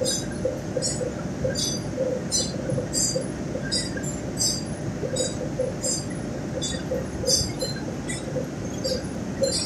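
Flour-mill roller mills running: a steady machinery din with a sharp metallic tick repeating about every two-thirds of a second.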